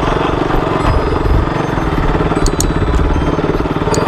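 KTM RC sport bike's single-cylinder engine running at low revs with a fast, steady pulse as it rides over a rocky dirt track, with low bumps from the rough ground and a couple of light clicks about two and a half seconds in.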